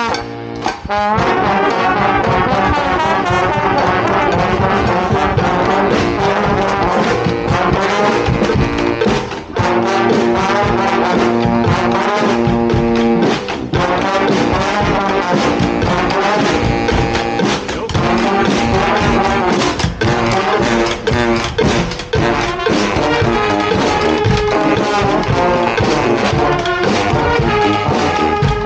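A street brass band playing, trombones and trumpets to the fore, over frequent percussion strikes.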